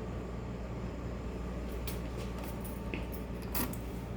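Steady low hum with a few faint clicks, the loudest about three and a half seconds in.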